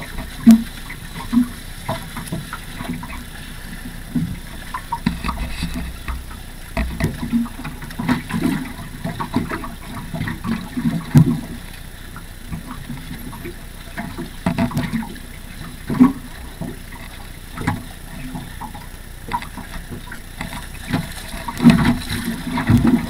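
Choppy water slapping against the hull of a sailing dinghy: irregular short knocks and thumps, several a second at times, over a steady rush of water and wind.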